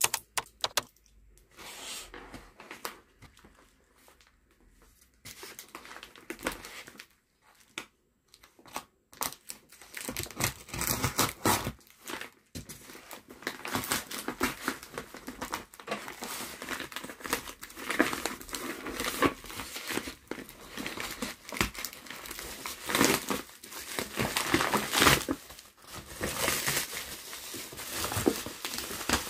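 Plastic courier mailer being cut and torn open, then crinkling plastic and bubble wrap as the package inside is pulled out. The rustling comes in many short bursts, sparse and faint for the first several seconds and dense and loud from about ten seconds in.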